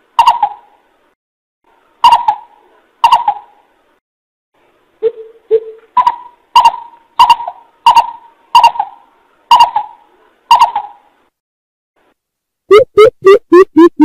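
Greater coucal (bìm bịp) calling: about a dozen loud, short, hooting notes spaced apart, with two deeper notes about five seconds in. This is the coucal's lure call, used to draw other coucals in.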